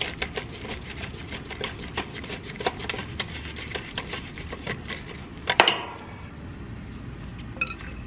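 A run of light, irregular clicks and taps of plastic and metal as a compressor hard start kit and its wire leads are handled in a gloved hand, with one sharper click about five and a half seconds in; fewer, fainter ticks follow.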